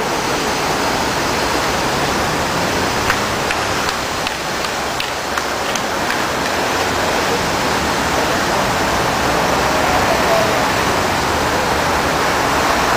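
Steady, loud rushing noise with no clear source, with a few faint clicks a few seconds in.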